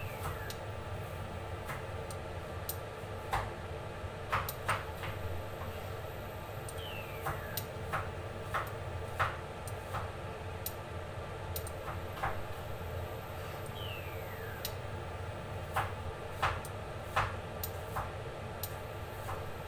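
Cookware heating on the stove, with irregular sharp ticks and clicks from the pan and pot over a steady low hum. A short falling chirp repeats about every seven seconds.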